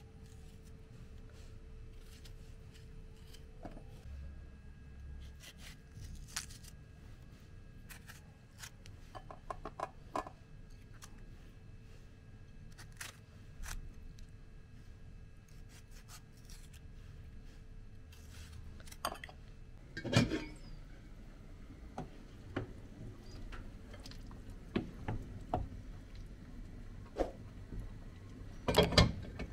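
A kitchen knife slicing a tomato over a ceramic plate: soft cuts and scattered light clicks of the blade against the plate. A few louder knocks stand out, the loudest about two-thirds of the way through and again near the end.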